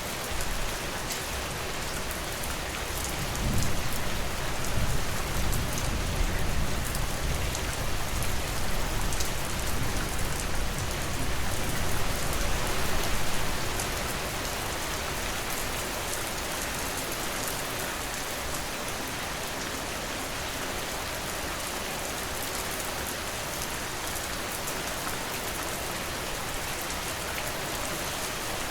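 Steady rain falling, an even hiss of drops. From a few seconds in, a deep low rumble swells under it for about ten seconds, then fades back to the rain alone.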